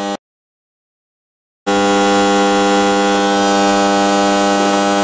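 A steady, buzzing hum holding one pitch with many overtones. It drops out to dead silence for about a second and a half just after the start, then comes back unchanged.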